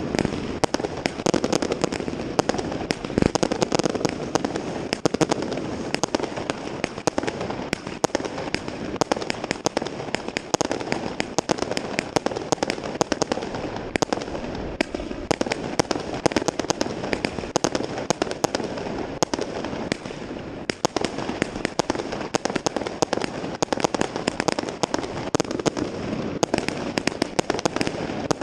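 Many fireworks and firecrackers going off at once in a dense, unbroken crackle of sharp bangs, one close on another with no pause.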